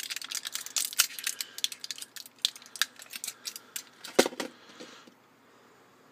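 Crinkling and clicking of a plastic-and-foil blister pack of vape coils being handled, with a sharper knock about four seconds in; the clicking stops about five seconds in.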